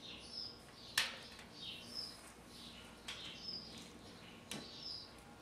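Small birds chirping, short high chirps repeating every second or so, with a sharp click about a second in and a lighter tap near the end from cleaning rods and gear being handled on a table.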